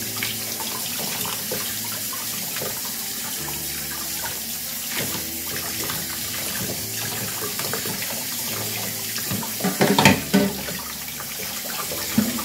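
Kitchen tap running into a stainless steel sink as a cleaned quail carcass is rinsed under the stream, water splashing off the bird and hands. The splashing gets briefly louder about ten seconds in.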